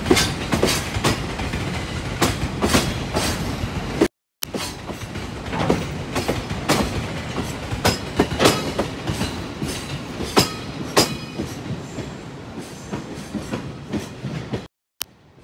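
Freight train of container flatcars rolling past, loud, its wheels clacking over the rail joints in an uneven run of sharp clicks over a steady rumble. The sound cuts out briefly about four seconds in, and again near the end, after which it is much quieter.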